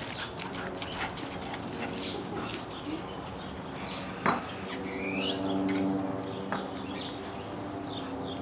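Puppies, with a short high wavering whine about five seconds in, over a steady low hum and scattered small clicks.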